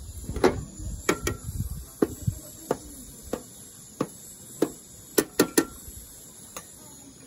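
Metal spoon knocking and scraping against a steel cooking pot as its contents are stirred, with sharp knocks about every two-thirds of a second and a quick run of three later on. A low rumble sits under the first two seconds.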